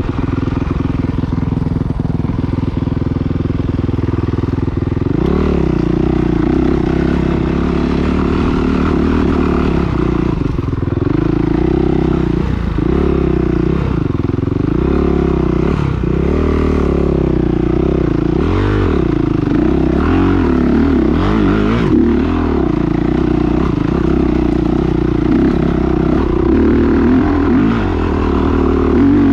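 Motocross dirt bike engines racing. After a steadier drone in the first few seconds, the pitch rises and falls repeatedly as the bikes accelerate and back off.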